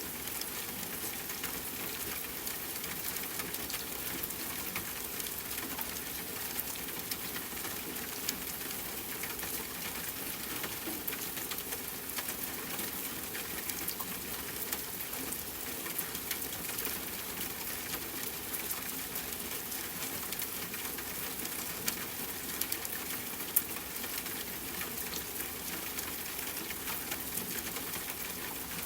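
Steady rain pattering on a tent, mixed with a campfire crackling in many small pops and clicks, two of them louder about three quarters of the way through.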